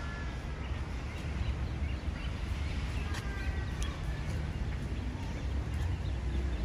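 Outdoor ambience: a steady low rumble with a few short bird calls and some light clicks.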